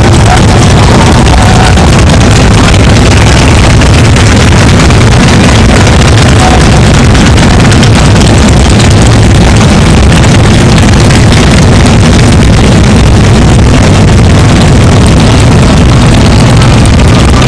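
Loud, steady low rumble of many motorcycle engines running together, mostly Harley-Davidson V-twin touring bikes.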